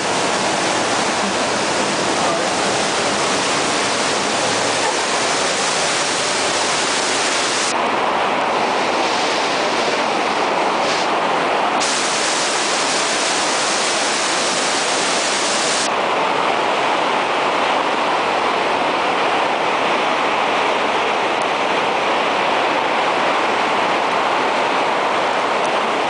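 Waterfall pouring close by, a loud, steady rush of falling water. Its hiss turns duller for a few seconds about eight seconds in, and again from about sixteen seconds on.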